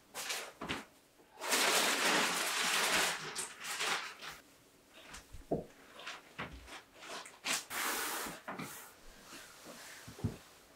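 Handling noises: scattered knocks and clicks, with a longer rustling scrape about a second and a half in that lasts over a second, and a shorter one near the end.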